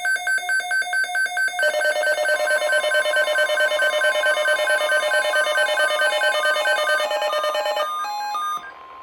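Emergency Alert System alert tones: loud electronic beeping, several pulses a second at a few alternating pitches. The pattern changes about a second and a half in, and a steady tone comes in near the end.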